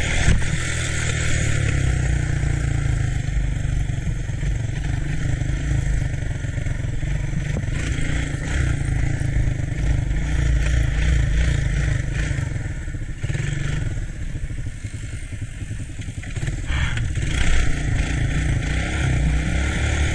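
ATC three-wheeler engine running under way, with heavy low rumble from wind on the microphone. The engine eases off about two-thirds of the way through and picks up again near the end.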